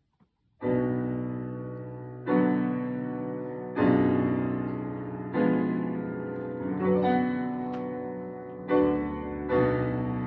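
Piano playing slow, sustained chords, starting about half a second in. A new chord is struck roughly every one and a half seconds and each rings on and fades.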